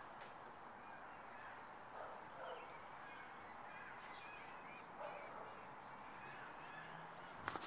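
Faint bird calls, a scatter of short wavering chirps and a few lower calls, over a steady background hiss. A short clatter comes right at the end.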